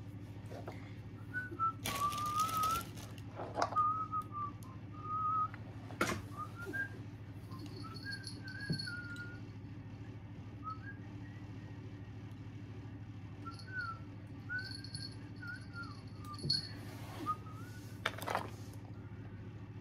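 A person whistling a wandering tune in short, gliding phrases, with toys being handled and rustled now and then.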